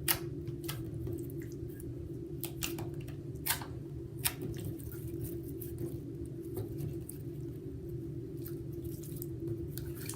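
Soft clear putty being squeezed and pressed by hand for ASMR, giving scattered sticky clicks and small pops, more of them in the first half.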